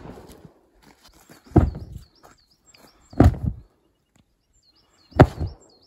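A woven blanket being shaken out by two people, its fabric snapping taut with a loud crack three times, every one and a half to two seconds. A small bird chirps faintly in the gaps.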